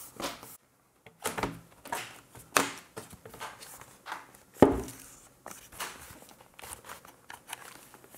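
Plastic clicks and knocks from a Lenovo ThinkPad A485 laptop being handled and turned over, with one louder thump about halfway through.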